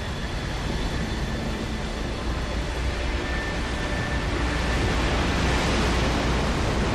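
Rushing water and deep rumble of a tsunami wave surging over the shore, a designed sound effect that grows steadily louder.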